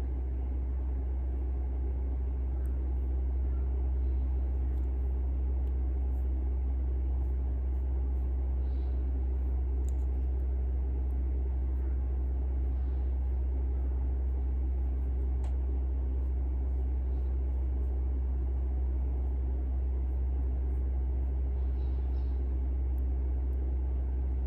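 Steady low background rumble that holds at an even level throughout, with a few faint soft ticks now and then.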